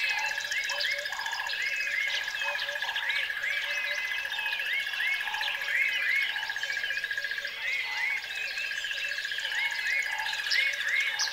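Many small birds chirping in short, quick rising calls over a steady high-pitched whine, as a continuous nature-sound background.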